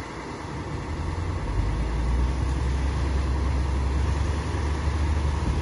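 An engine running with a steady low rumble, growing louder about a second in.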